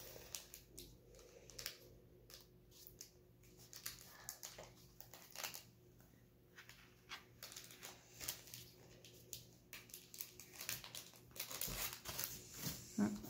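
Foil Pokémon booster pack wrapper crinkling in a child's hands as it is worked open: a scatter of faint, short crackles.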